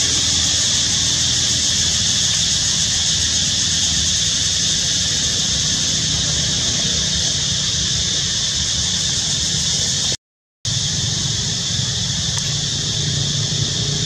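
Steady outdoor background hiss, strongest high up. It drops out to total silence for about half a second about ten seconds in.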